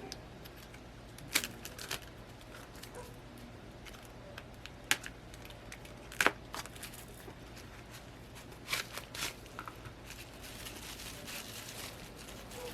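Plastic packaging crinkling with scattered sharp clicks as a small replacement phone part is handled and unpacked, louder rustling near the end.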